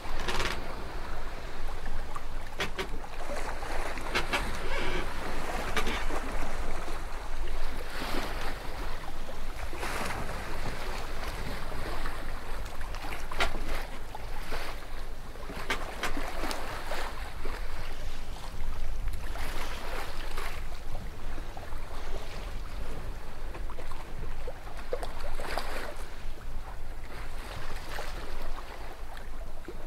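Water rushing and splashing along a sailboat's hull in choppy water, with wind buffeting the microphone. Louder surges come every few seconds as waves hit.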